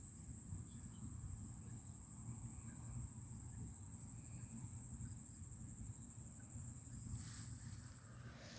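A steady high-pitched insect trill, with a low rumble underneath. The trill stops shortly before the end, around a brief rustling hiss.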